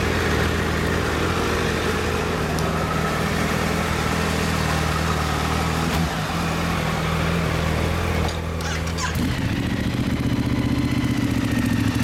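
Motorcycle engines idling steadily. About nine seconds in the engine note changes to a different, slightly higher idle.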